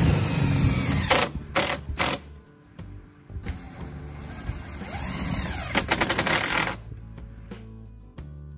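DeWalt 20V Max cordless drill driving self-tapping stainless steel screws through a door hinge, in two runs whose motor pitch sags and recovers under load, each run ending in clicking as the screw goes home. Background music plays underneath and is all that is left over the last second or two.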